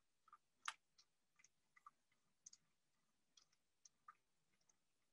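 Faint, scattered light clicks of thin hookup wires and a small plastic relay module being handled as the wire ends are fitted into its terminal block; the strongest click comes under a second in.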